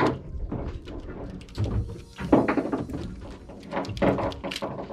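Irregular knocks and thumps aboard a small fishing boat, several in a row.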